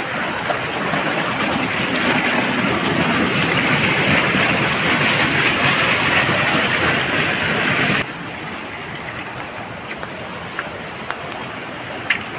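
Rainwater runoff rushing past in a steady noisy torrent that swells louder for several seconds, then drops suddenly to a quieter rush about eight seconds in. A couple of faint clicks come near the end.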